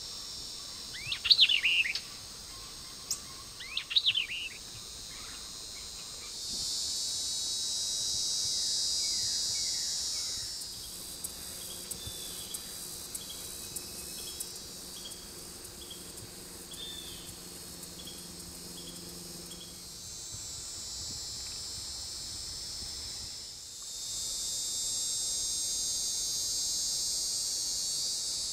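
A small songbird gives two loud, quick calls that sweep up and down, about a second in and again about four seconds in. After that, a high, steady insect drone swells up and fades twice, and between the two spells a run of short, high chirps repeats about once a second.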